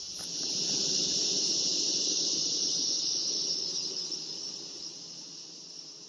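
Honeybees buzzing around an open hive, swelling in loudness from about half a second in and fading after about four seconds. A steady high-pitched insect drone sounds behind it.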